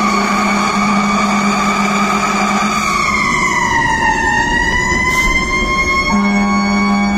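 Fire engine siren wailing, its pitch sagging and then climbing back about halfway through. A lower steady tone sounds with it at the start and comes back about a second before the end.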